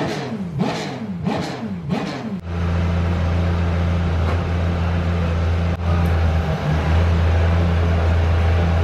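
Porsche 911 GT3 R race car's flat-six engine being blipped in quick repeated revs, rising and falling about every 0.7 s. About two and a half seconds in it settles into a steady, raised idle that holds to the end.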